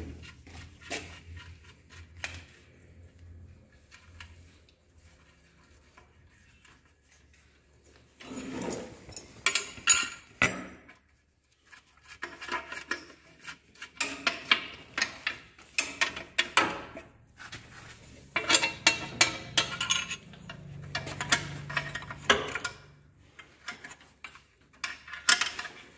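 Ratchet wrench clicking in quick runs and steel tools clinking as bolts are run down on a Massey Ferguson tractor's hydraulic lift pump mounting. The first few seconds are quieter, with the clicking coming in bursts from about halfway on.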